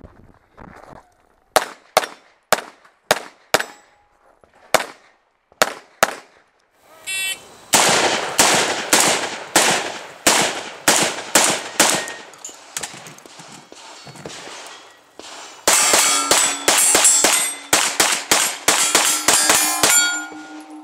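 Gunshots fired at steel targets: a string of single shots about half a second apart, then faster strings. Steel plates ring out as they are hit, loudest in the rapid string near the end.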